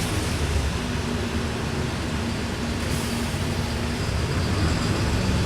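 City bus running along the road, heard from inside the passenger cabin: a steady engine drone over road and tyre rumble.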